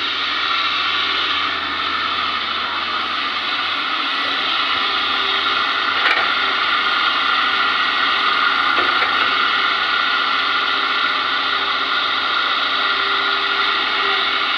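Hitachi ZX200 hydraulic excavator running steadily at working revs, with a sharp knock about six seconds in and a lighter one near nine seconds.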